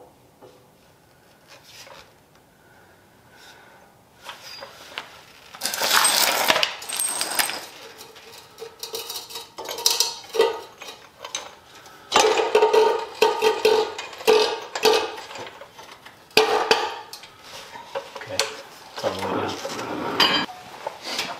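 Metal clanking and clinking in short bursts as a Subaru GC8's factory stamped steel rear subframe, with suspension and brake parts attached, is lowered on a floor jack. It is fairly quiet for the first few seconds, then comes in repeated clatters, some ringing briefly.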